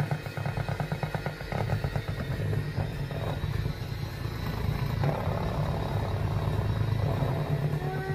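Electric hand mixer running steadily, its beaters whisking the lumps out of batter in a plastic bowl, with a fast rattle of the beaters in the first couple of seconds.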